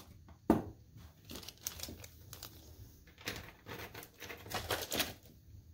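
Clear plastic parts bag crinkling and rustling as it is handled and lifted out of styrofoam packaging, with a sharp knock about half a second in.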